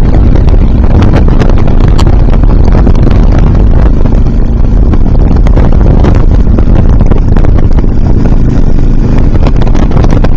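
Wind buffeting the microphone over the steady drone of a motorcycle engine cruising at highway speed, loud and crackling throughout.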